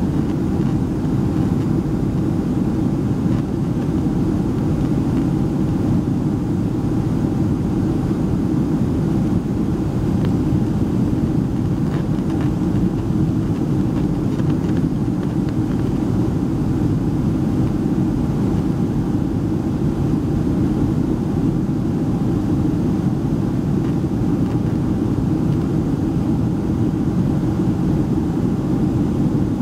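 Boeing 737-300 cabin noise in descent, heard at a window seat beside the wing: the CFM56-3 turbofans and the airflow make an even, unbroken rumble with a faint steady hum above it.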